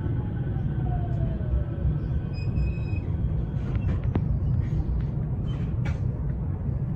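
Cab of a 521 series electric train coming to a stop: a falling motor whine over the first couple of seconds, then a steady low rumble as the train stands at the platform. A short high beep sounds about two and a half seconds in, and a sharp click about four seconds in.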